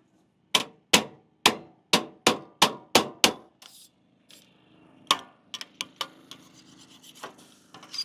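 About eight sharp knocks in quick succession, roughly two or three a second, each ringing briefly, followed by scraping and a few lighter clicks: hand tools being worked on the edge of fresh concrete.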